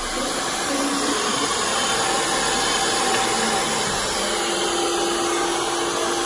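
Handheld hair dryer blowing steadily on long hair close by, a constant rush of air with a faint steady motor hum.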